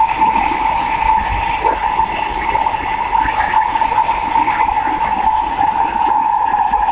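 SMRT C151B train running at speed, heard inside the carriage: a steady loud rumble of wheels on rail with a constant high whine running through it.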